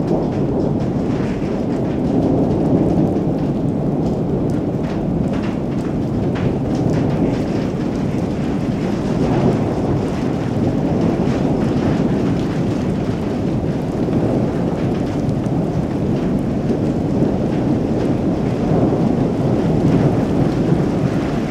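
Thunderstorm: steady rolling thunder under heavy rain, with scattered sharp taps of drops close by.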